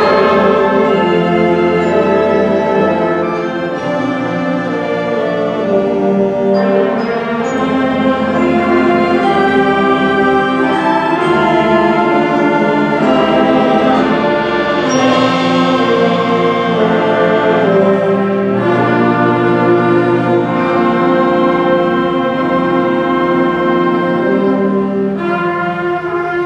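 Seventh-grade concert band playing a slow piece in sustained, layered chords, with a brighter swell about halfway through.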